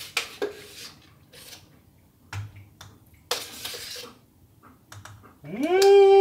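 Light clicks and taps of a plastic scoop against supplement tubs and a bottle, with a short rustle of powder being poured in. About five and a half seconds in, a man's voice rises into a loud, held sung note, the loudest sound here.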